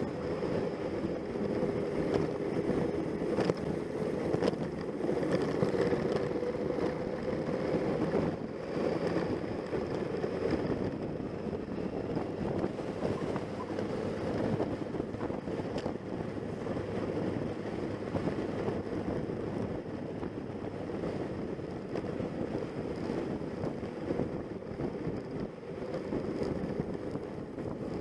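Motorcycle engine running steadily under way, its pitch wavering a little, with heavy wind noise on the microphone.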